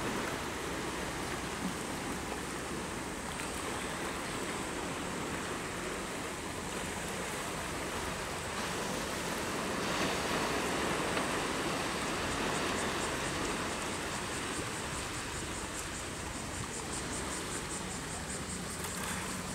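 Sea surf washing against a rocky shore, a steady rushing noise. From about twelve seconds in, a high, rapidly pulsing buzz joins it.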